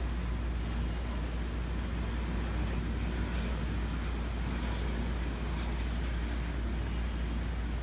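Steady distant rumble and hiss of urban outdoor noise, with no rise or fall.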